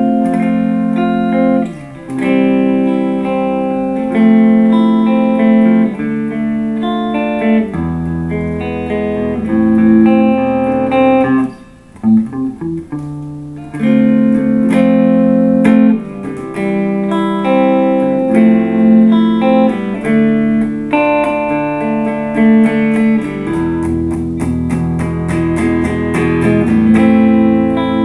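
2008 Epiphone Sheraton II semi-hollow electric guitar played through a Fender Blues Junior valve amp on a clean setting with a little reverb, ringing chords and notes. The playing briefly drops away about twelve seconds in.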